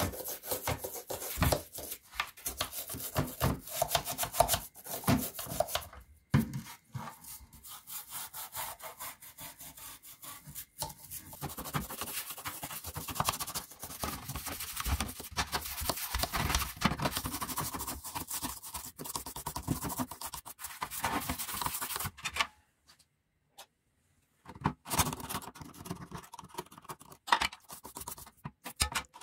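A toothbrush scrubbing the wet, soapy plastic housing and intake grille of an air cooler water pump in quick back-and-forth strokes. The scrubbing stops for about two seconds near the end, then starts again.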